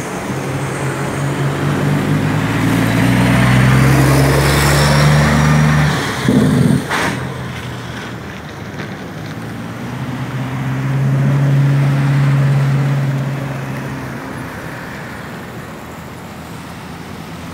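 Road traffic: the engines of trucks and cars go by, loudest about four to six seconds in and again about eleven to twelve seconds in. There is a short loud burst about six and a half seconds in.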